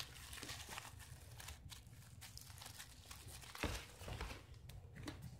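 Bubble wrap crinkling faintly as a small pet wriggles and rolls on it, with a louder crackle about two-thirds of the way through.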